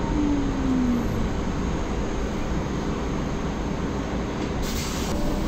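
Cabin of a moving Solaris Urbino 9 LE battery-electric bus: steady road and tyre rumble. A short falling tone comes in the first second, and a brief hiss about four and a half seconds in.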